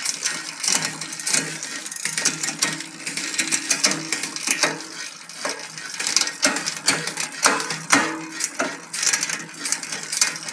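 An e-bike drivetrain turned by hand on a work stand: the chain runs over the rear cassette with a steady whir and many sharp clicks as the Shimano Acera rear derailleur shifts through the gears. It is being test-shifted after the bent derailleur hanger was realigned, and the shifts are a little hesitant.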